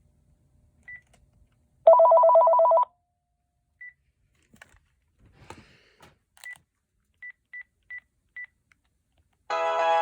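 Panasonic KX-TG7731S cordless phone handset: a short high beep, then a loud one-second burst of warbling ring trilling between two tones, followed by a string of short high beeps and a few faint clicks. Near the end a melodic ringtone starts playing.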